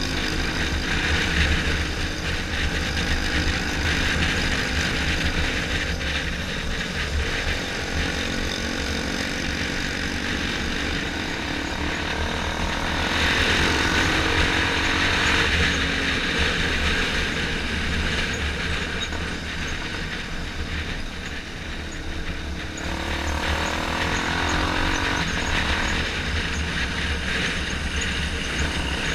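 Motorcycle engine running while riding in traffic, under a steady rush of wind and road noise on the helmet-mounted microphone. The engine pitch rises and falls a couple of times as the bike speeds up and eases off.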